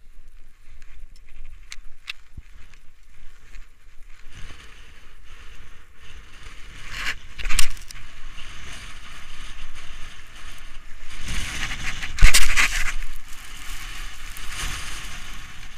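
Skis scraping and hissing over packed snow on a downhill run, with wind rushing over the microphone. Two louder surges come about halfway through and again about three quarters of the way through.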